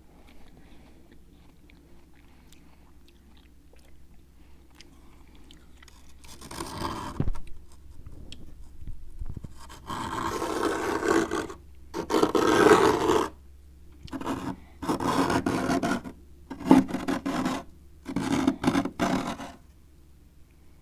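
A spoon scraping built-up frost in a freezer. After a quiet start with faint scratches, it makes about seven rough, rasping scrape strokes, each half a second to a second and a half long.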